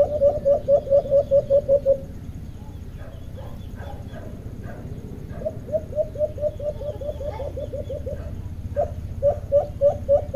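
Caged alimukon dove decoys calling: rapid runs of short, clipped coo notes, about eight a second, in three bursts of a second or two each, with fainter scattered bird chirps in the gaps.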